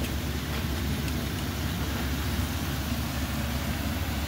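Cassava pieces deep-frying in hot oil: a steady sizzle over a constant low hum, with a few faint ticks.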